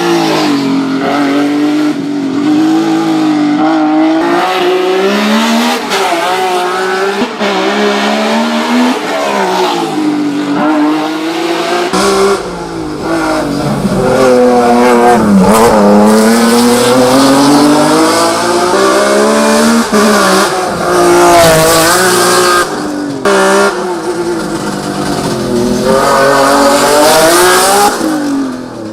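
BMW E30 race car's engine at full throttle, its pitch climbing through the revs and dropping back at each gear change or lift, over and over.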